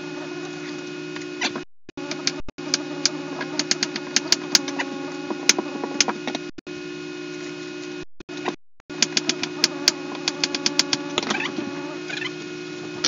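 Kitchen cooking sounds: a steady low hum under frequent, irregular sharp clicks and taps from knife work on a wooden cutting board and skillets on the stove, cut off briefly several times.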